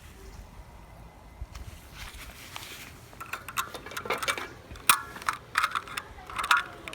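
Hard plastic toy-gun parts being handled, knocking and clattering together in a run of sharp clicks that starts about halfway through.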